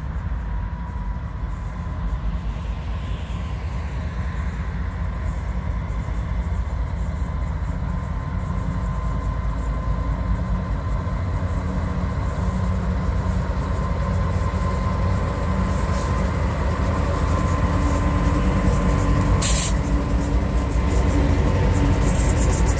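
Pacific National diesel-electric freight locomotives approaching and passing close by, their engine rumble growing steadily louder as they draw level, with the train running on the rails behind them.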